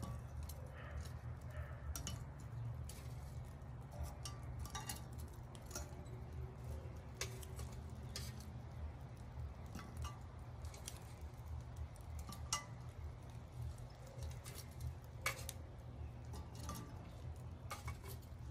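Charcoal briquettes picked one at a time from a metal chimney starter with metal tongs and set on a cast iron Dutch oven lid: light, irregular clinks and clacks of tongs and briquettes, over a steady low hum.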